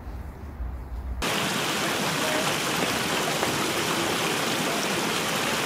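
Low wind rumble on the microphone, then about a second in a shallow stream running over a small cascade starts abruptly, a steady splashing water sound.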